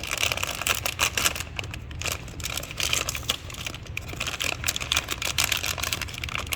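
Plastic wrapping of a blind-box toy figure being crinkled and torn open by hand: a run of irregular crackles and rustles.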